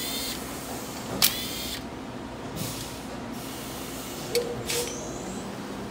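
Metal parts knocking together: a sharp clink about a second in that rings briefly with a short hiss, and two more clinks near the end, over a steady low hum.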